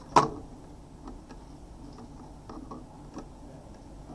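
Handling noise from a plastic vehicle interface and its cables: one sharp click just after the start, then a few fainter clicks and knocks.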